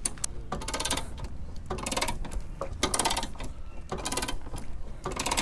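Ratcheting jack wrench cranking a car jack: quick runs of ratchet clicks with each back-and-forth stroke of the handle, about one stroke a second, as the jack works easily.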